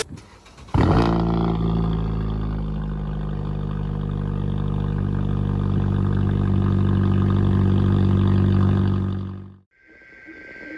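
Emergency alert attention tone from a required weekly test: a loud, steady, harshly distorted tone that starts about a second in and cuts off abruptly near the end. It is followed by faint high electronic data tones.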